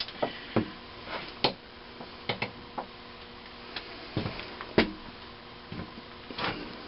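Irregular light clicks and taps of a flashlight, tools and small metal engine parts being handled, about a dozen scattered sharp ticks, ending as grease is worked onto a connecting-rod bearing cap.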